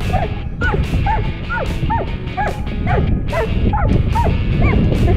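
Border Collie yipping and whining excitedly in short high calls, about two a second, at a hooked largemouth bass being played to the boat, over a steady low rumble.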